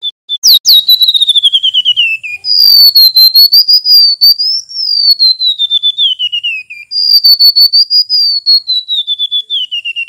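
Golden-bellied gerygone (remetuk laut) singing: three long phrases of high, thin whistled notes that waver and step downward in pitch, the middle one rising a little before falling away.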